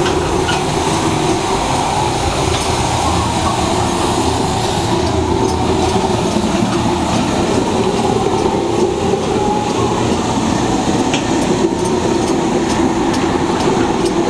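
Sand-drying kiln running: a loud, steady rumble of machinery with a clattering edge and light ticks in the second half.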